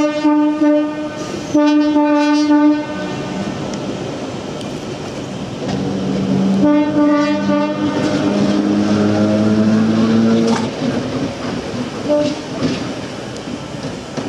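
Heritage Red Set F1 electric suburban train sounding its horn three times, each a steady chord-like note: at the start, about two seconds in, and about seven seconds in. From about six seconds in, the traction motors give a whine that climbs in pitch for about four seconds as the train picks up speed. The wheels clatter on the track throughout.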